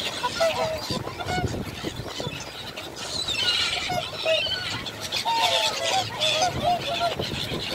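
A flock of birds calling: many short, overlapping calls, with higher chirping among them.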